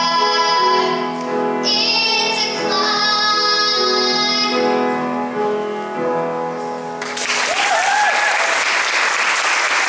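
A girl singing into a microphone, holding long notes; about seven seconds in the song stops abruptly and the audience applauds.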